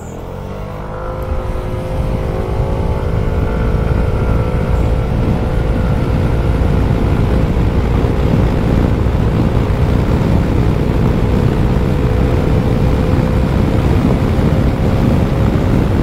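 Zontes M125 scooter's single-cylinder 125 cc engine at full throttle from a rolling start. The engine note rises within the first second, then holds at a nearly steady pitch while the CVT lets the scooter gather speed. Wind rush over the microphone builds up underneath.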